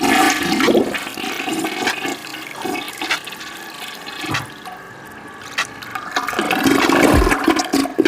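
Toilet flushing: a continuous rush of water that starts loud, sinks in the middle and swells again near the end.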